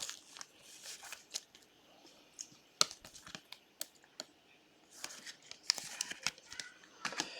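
Trading cards and their packaging being handled: scattered sharp clicks and ticks of cards sliding and tapping against each other, with a longer crinkling rustle about five seconds in.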